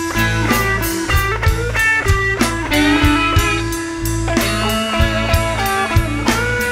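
Blues-rock band playing an instrumental break: electric guitar soloing with bent notes over bass and a steady drum beat.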